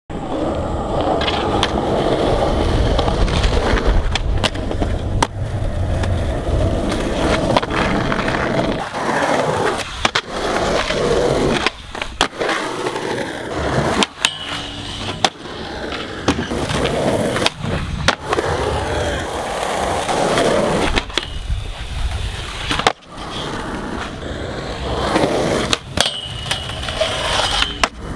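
Skateboard wheels rolling on rough concrete, broken by sharp cracks of tail pops and landings, with a brief scraping screech of the board grinding along a metal rail. The sound cuts abruptly between takes several times.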